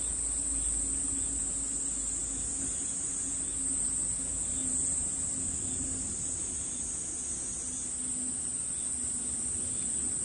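Steady high-pitched drone of insects calling, with a faint steady low hum underneath.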